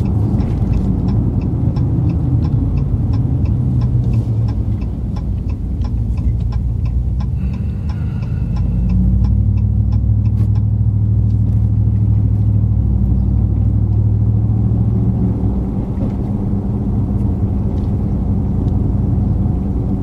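Cab noise of a moving 2020 Ram 1500 Rebel pickup: engine and road rumble, which swells for several seconds in the middle as the truck speeds up. A quick, steady ticking runs through the first eight seconds or so.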